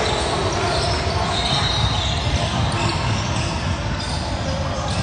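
Echoing gymnasium noise of a youth basketball game: a basketball bouncing on the hardwood court under the general hubbub of players and spectators in a large hall.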